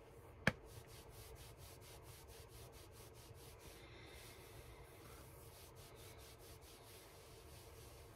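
Quiet room tone broken by one sharp click about half a second in, followed by faint, quick, evenly spaced ticking for a few seconds, with a few more ticks around six seconds in.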